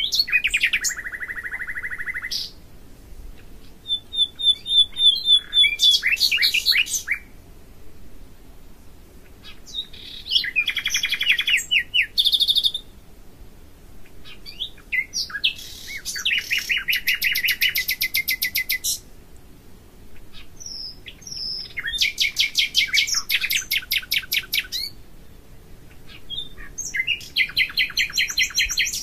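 A songbird singing loud, high-pitched phrases of rapidly repeated notes and fast trills, each phrase a few seconds long, with short pauses between them, six phrases in all.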